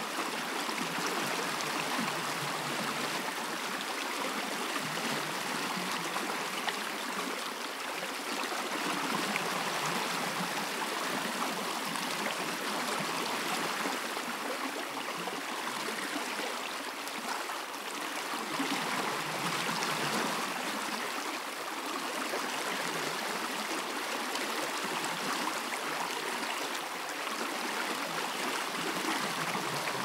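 Niagara Falls: a steady rush of falling water, an even hiss with no breaks.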